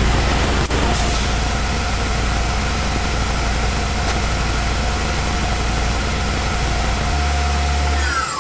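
Tormach PCNC mill spindle running a 1/16-inch end mill through an aluminium blank, a steady whine under the loud steady hiss of the coolant nozzles. A falling whine comes just before the end.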